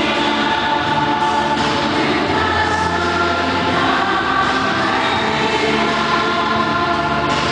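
Accompaniment music for the routine, played back over a loudspeaker: a choir singing long held chords that change every second or two.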